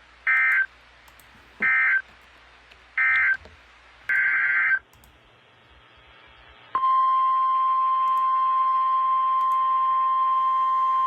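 Four short screeching bursts of SAME digital data tones, about a second apart, like the end-of-message code that closes a weather radio warning. After a two-second gap, a loud, steady warning alarm tone begins and holds, the 1050 Hz alert tone of NOAA Weather Radio.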